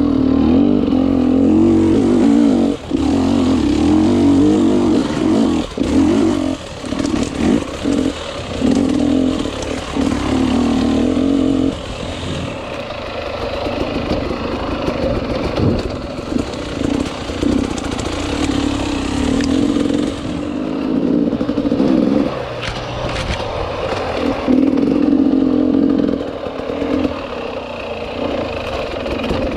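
Enduro motorcycle engine being ridden off-road, the throttle opening and closing again and again, so the engine note keeps breaking off and coming back; it runs steadier and a little quieter about halfway through.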